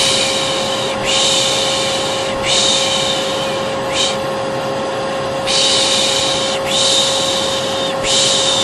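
A person's repeated "shh" shushing, mostly hisses about a second long with one short shush in between, over the steady hum of a running vacuum cleaner. These are the "piş piş" and vacuum sounds used together as white noise to lull a baby.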